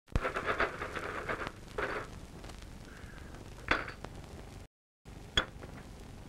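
Glass soda bottles and cans rattle and clink together in a metal wheelbarrow for about two seconds. Then come two sharp single clinks of glass bottles set down on brick paving, with a brief dead gap between them.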